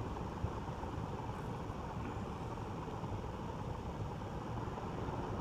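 Compton Greaves 48-inch ceiling fan with wooden blades running on high, a steady rush of moving air.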